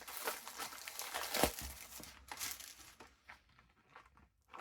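Plastic shrink wrap on a trading card booster display box crinkling and tearing as it is pulled off, with a sharp snap about a second and a half in; the handling turns fainter and sparser for the last second or two.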